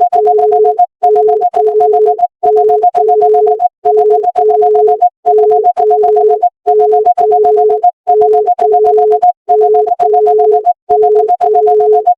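Emergency alert alarm, a synthesized two-tone signal: a steady higher tone over a lower tone that beeps twice. It repeats in loud bursts of about a second and a half, each followed by a short gap.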